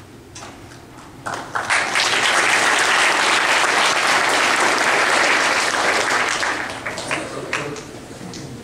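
Audience applauding. The clapping builds quickly about a second in, holds for several seconds, then tapers off to a few scattered claps near the end.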